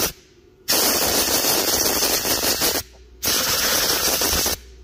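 Compressed-air blow gun blasting into the threaded bolt holes of a steering knuckle in two long blasts, the first starting just under a second in and the second just over three seconds in, cutting off shortly before the end. The air is clearing metal shavings out of freshly chased threads.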